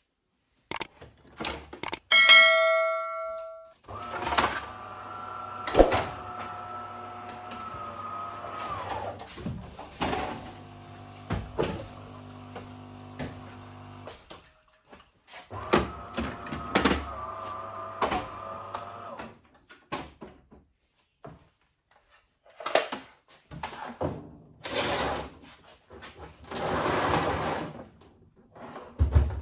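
DeLonghi Perfecta Cappuccino ESAM 5600 coffee machine at work: a short beep, then an internal electric motor running steadily for about ten seconds and again for a few seconds, with clicks and knocks, and two spells of rushing noise near the end.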